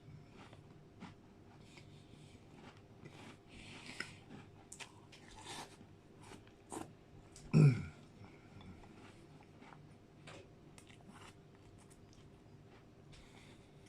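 Close-miked eating: quiet chewing with scattered crunches and mouth clicks, from McFlurry ice cream mixed with digestive biscuits. About seven and a half seconds in comes one loud, short sound that falls in pitch.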